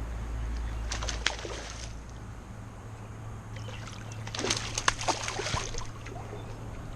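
Creek water splashing and sloshing in two short bouts, about a second in and again from about three and a half to five and a half seconds, over a low steady rumble that fades out after the first bout.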